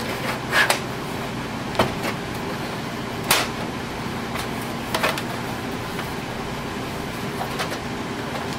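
Sharp plastic clacks as the printer's document feeder and top covers are handled, four or five of them spread through the first five seconds, over a steady hum.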